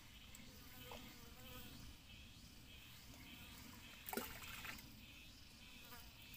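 Near silence: faint outdoor lakeshore ambience, with one brief sharp sound about four seconds in.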